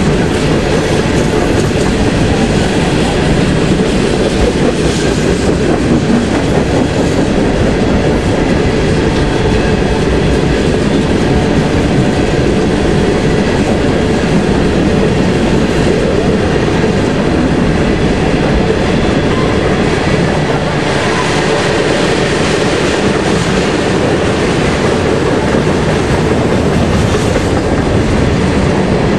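Freight train rolling past, its cars' wheels clattering steadily over the rail joints in a continuous loud rumble.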